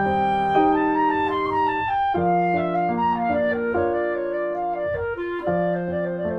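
Light instrumental background music: a woodwind melody, like a clarinet, over piano chords.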